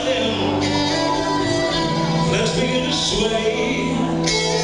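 Irish/Celtic folk band playing live, amplified through a PA system, with steady sustained notes and no break.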